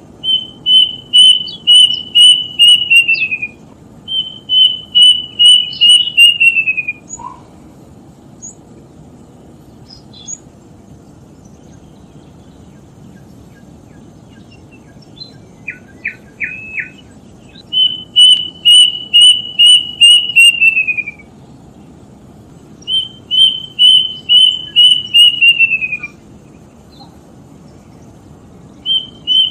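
A bird singing four times, each song a run of about eight quick, evenly spaced whistled notes that slide down in pitch at the end, lasting about three seconds, with long gaps between. About halfway through, three short separate notes sound between the songs.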